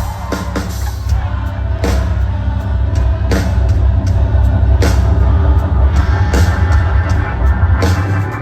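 Live rock band playing an instrumental passage, with loud drums and bass and regular drum and cymbal hits.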